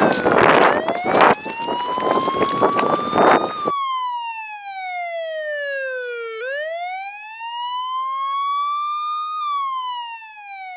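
Wailing siren sweeping slowly down and up in pitch, about three seconds per sweep. For the first few seconds it is overlaid by loud rushing and knocking noise, which cuts off abruptly, leaving the siren alone.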